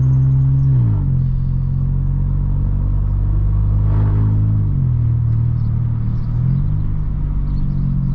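Volkswagen T-Cross's 116 cv 1.0 turbo three-cylinder, Stage 1 remapped, running on the move with its exhaust open straight after the catalytic converter and no muffler: a loud, resonant drone, its pitch dipping briefly about a second in, near five seconds and around six and a half seconds.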